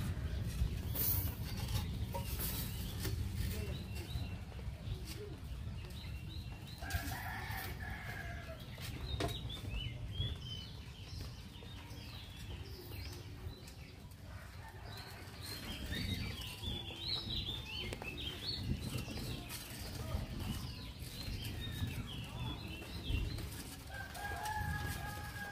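A rooster crowing twice, about seven seconds in and again near the end, with small birds chirping in between over a steady low rumble.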